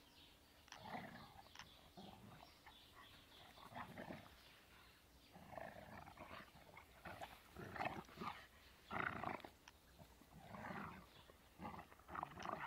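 A Hovawart and an English Setter puppy growling in rough play, in short irregular bursts, loudest in the second half.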